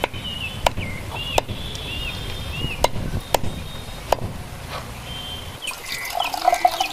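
A heavy cleaver chopping through raw chicken onto a wooden stump block, about six sharp chops spaced roughly half a second to a second apart. Near the end, water pours and splashes into a steel basin.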